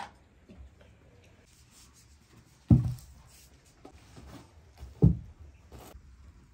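Two dull thumps about two and a half seconds apart, with faint clicks and handling noises between them.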